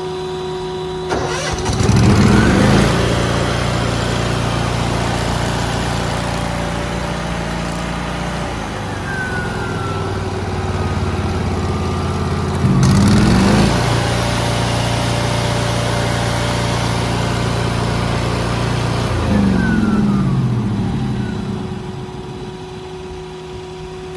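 An engine speeding up, holding at a higher steady speed for about six seconds, then slowing back down, twice.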